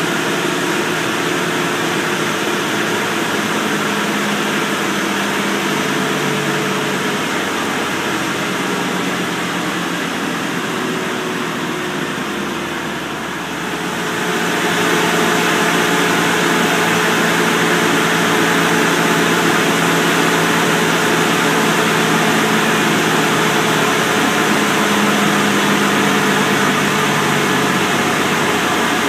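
Cummins ISL inline-six turbodiesel in a motorhome, running at high revs under load on a chassis dynamometer: a steady engine drone under a strong hiss. The sound dips briefly about 13 seconds in and is louder from about 14 seconds on.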